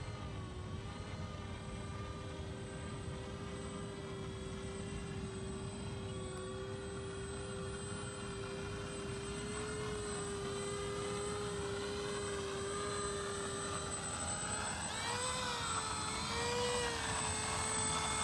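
Electric motors and twin propellers of a Banana Hobby V-22 Osprey RC tiltrotor in flight: a steady propeller whine. Over the last few seconds it grows louder and its pitch rises and falls as the aircraft tilts its rotors up and comes in low into a hover.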